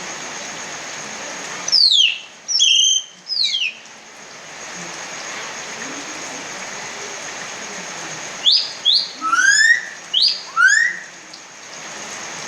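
Common hill myna giving loud whistled calls with sliding pitch in two bursts: three calls about two seconds in, then about five quick ones later on. Steady rain hisses underneath.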